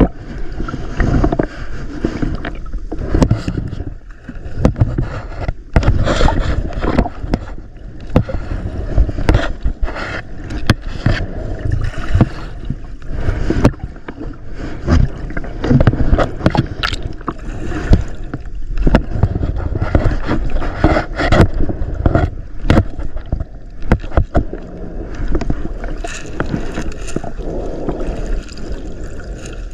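Water splashing and gurgling close to the microphone as someone swims, with frequent irregular knocks and sloshes.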